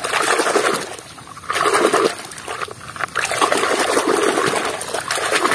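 Muddy water sloshing and splashing in a basin as a hand scrubs a plastic toy under the surface, in three uneven surges, the last and longest from about three seconds in.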